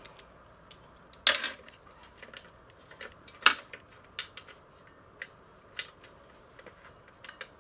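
Metal hand tools clicking and clinking while working on an engine: scattered light irregular clicks, with two sharper clanks about a second and three and a half seconds in.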